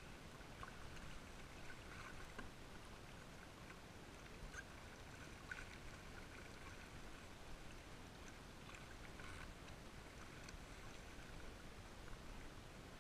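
Faint water lapping and splashing against a sit-on-top kayak's hull on the sea, with small scattered ticks over a low steady rumble.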